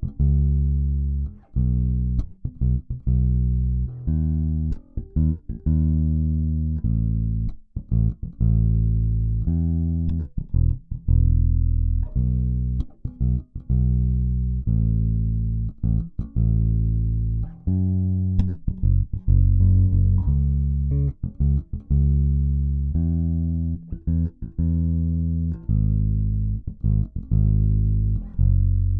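Bass guitar played alone, a steady line of plucked low notes, each ringing briefly and cut off before the next, with a few short breaks between phrases.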